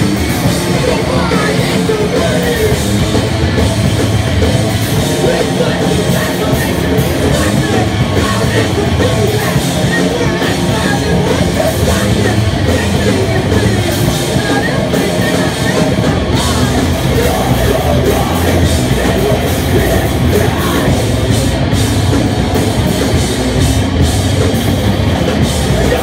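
A heavy rock band playing live at full volume: a drum kit and distorted guitars through amplifier stacks, in one unbroken loud wall of sound.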